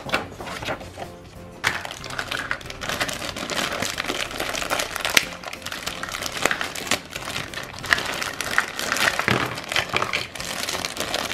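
Crinkling and crackling handling noise as hands press kinetic sand into a flexible plastic mold, an irregular run of small clicks and rustles, over background music.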